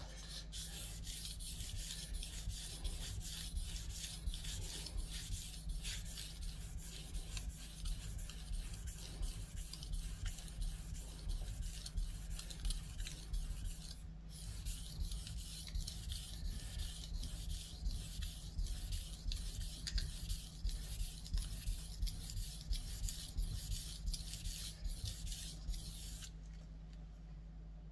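Steel santoku blade stroked back and forth on a Naniwa 3000-grit whetstone: a quiet, rhythmic scraping rub of repeated strokes. The strokes break off briefly about halfway and stop shortly before the end. This is the fine final stone, which refines and polishes the edge.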